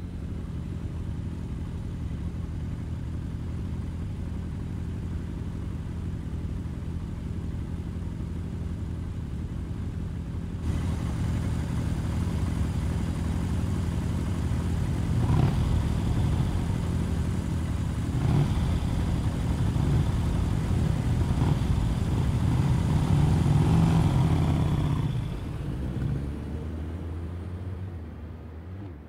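Motor vehicle engine sound: first a steady low rumble, then, after an abrupt change about ten seconds in, louder traffic and engine noise with several swells like revving or vehicles passing, dropping away near the end.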